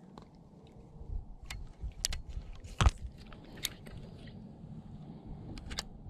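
Irregular clicks and knocks from handling fishing gear while landing a small fish, over a low rumble, with one sharper click about three seconds in.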